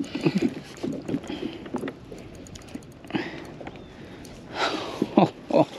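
A fish being landed by hand beside a plastic fishing kayak: scattered knocks and taps of gear and hull in the first two seconds, brief splash-like rushes of water about three and nearly five seconds in, and two short falling grunts near the end.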